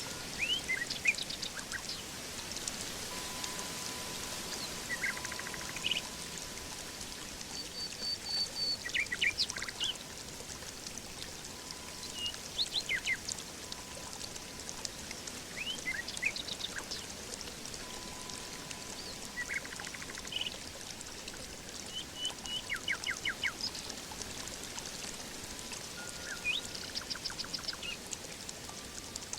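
Songbirds chirping and trilling in short, scattered calls over a steady wash of water. A faint held tone fades in and out every several seconds.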